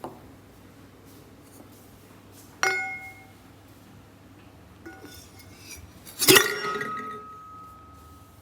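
Hard objects clinking together twice, each strike ringing briefly, with a few small knocks in between; the second clink is the loudest and its ring fades over about two seconds.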